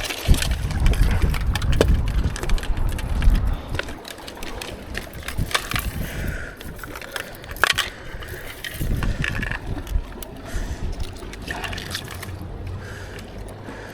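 Wind buffeting the microphone in gusts, strongest in the first few seconds and again about nine seconds in, with scattered small clicks and knocks of handling.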